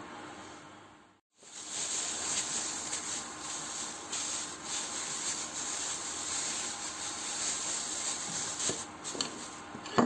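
Thin plastic bag rustling and crinkling unevenly as a raw chicken breast is handled out of it, with a short thump near the end as the breast is laid on a plastic cutting board.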